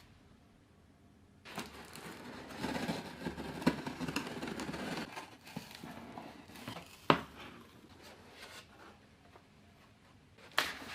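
Hands handling computer parts and their packaging: crinkling and rustling, broken by a few sharp clicks, the loudest about seven seconds in.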